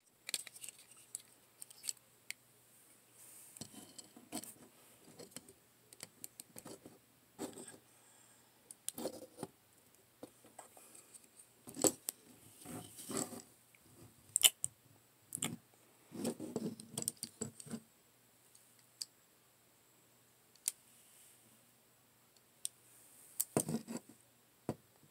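Plastic action figures being handled and moved about on a tabletop: scattered soft clicks, taps and scrapes, in several short clusters.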